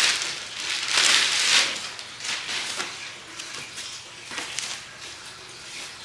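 Packaging rustling and crinkling as the parts of a front lip splitter are unwrapped and handled, in several bursts, the loudest about a second in, then quieter.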